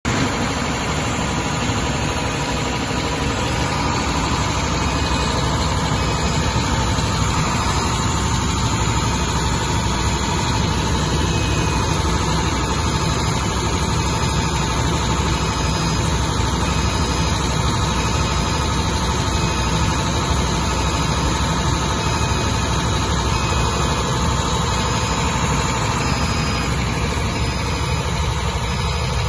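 275 kVA diesel generator set running steadily at its rated speed with no load: the output is up at about 231 volts per phase while no current is drawn.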